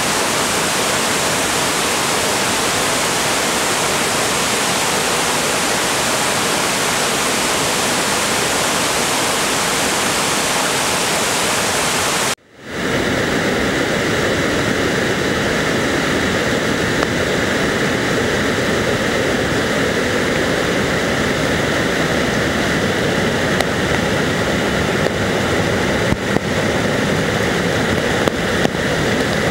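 Waterfall in full flood, a steady, dense rush of floodwater pouring over rocks. About twelve seconds in it cuts out for an instant and comes back fuller and deeper, with a few faint ticks near the end.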